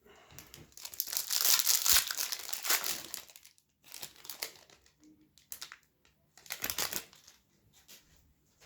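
Wrapper of a trading card pack being torn open and crinkled: a long stretch of crackling over the first three seconds, then a few shorter crinkles.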